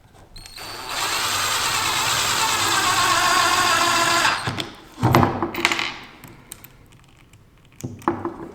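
Cordless impact driver driving a self-drilling screw through PVC pipe into a plywood base: a steady run of about three and a half seconds, then a shorter burst about five seconds in and a brief one near the end.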